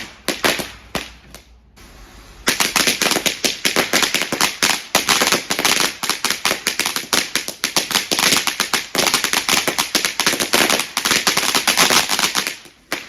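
Firework crackling: a rapid, dense run of sharp cracks, several a second. It eases off briefly about two seconds in, starts again and runs on, then cuts off suddenly near the end.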